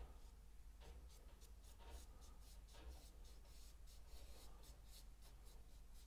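Faint scratchy strokes of a paintbrush working acrylic paint into canvas: many short strokes in quick, irregular succession.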